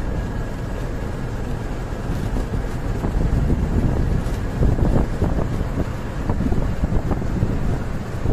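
Steady engine and road rumble of a moving truck heard from inside the cab at speed, with wind buffeting the microphone.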